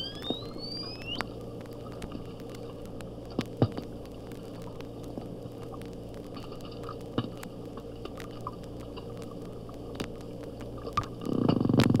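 Bottlenose dolphin underwater noises played back at half speed: a whistle glides up in pitch in the first second, then scattered sharp clicks sound over a steady hydrophone background hum. Near the end a loud, rapid train of clicks starts, the kind that resembles a creaking door or rusty hinge.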